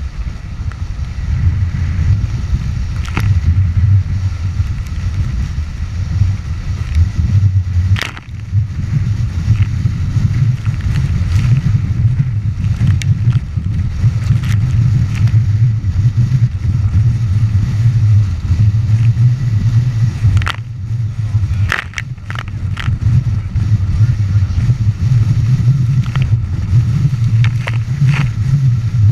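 Strong wind buffeting the microphone over water rushing past the hulls of a Nacra 14 catamaran sailing fast in wind near 50 km/h. A few sharp knocks break through, several of them near the end.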